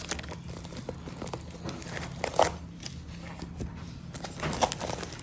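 Packaging crinkling and rustling as a parcel is unwrapped by hand, in irregular crackles with a couple of louder crumples partway through.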